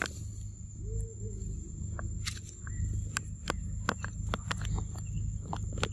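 Scattered sharp clicks and crackles of macaques moving over dry leaf litter and handling a corn cob, thicker in the second half. Under them runs a steady high insect drone and a low rumble.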